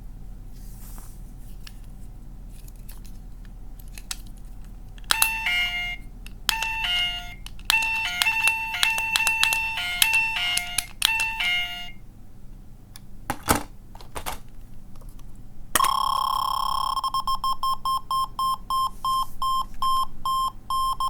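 Small electronic sound toy from a capsule machine playing tinny beeping tones. A short run of electronic beeps in a tune-like pattern starts about five seconds in, followed by a couple of clicks. Then a long steady tone breaks into rapid, even beeps, about five a second, near the end.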